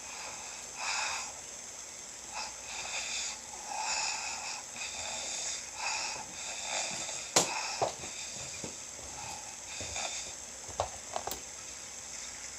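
A sleeping man snoring: a string of short, irregular noisy breaths. A sharp click about seven seconds in is the loudest sound, and a few smaller clicks follow later.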